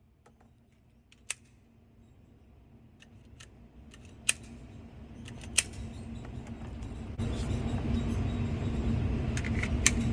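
Scattered sharp mechanical clicks of gun or gear handling, a few at a time, over a background hiss that swells steadily and jumps louder about seven seconds in.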